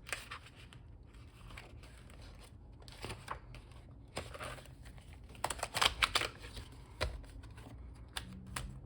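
Paper planner pages and inserts being handled and fitted onto disc rings: rustling and crinkling with small clicks and snaps, busiest about six seconds in.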